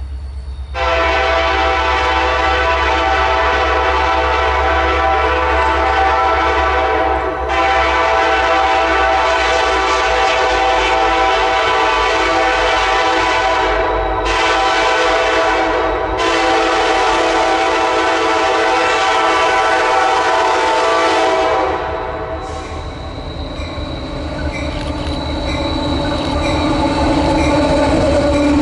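Freight diesel locomotive horn blowing a long, steady chord, held for about twenty seconds with one brief break about seven seconds in. The horn then stops and the rumble and wheel noise of the passing train build up.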